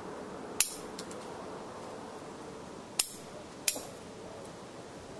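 Bonsai scissors snipping twigs from a Japanese white pine: three sharp snips, one about half a second in and two close together near the three-second mark.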